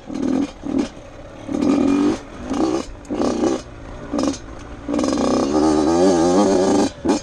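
Dirt bike engine revving in short on-off bursts as the throttle is opened and closed. Near the end it is held open for about two seconds with its pitch wavering.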